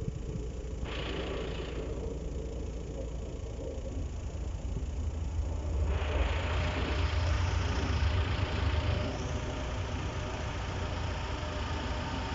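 A vehicle's engine rumbling low and steady. It grows louder about four seconds in, and from about six seconds a wide rushing noise joins it.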